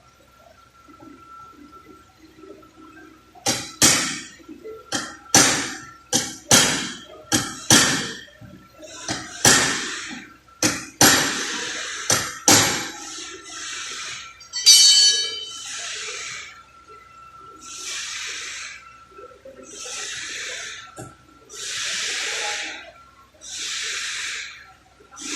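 Hammer blows on sheet-metal body panels, about a dozen sharp ringing strikes in quick succession, followed by regular hissing bursts of about a second each, roughly every two seconds.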